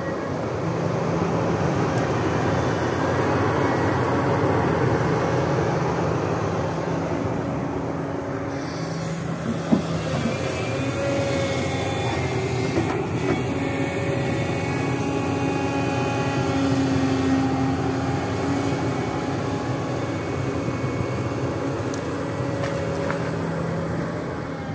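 Sany SY365H excavator's diesel engine running under load as the hydraulic boom and bucket dig, lift and swing a mass of roots and soil, with steady whining tones that come and go. A single sharp knock about ten seconds in.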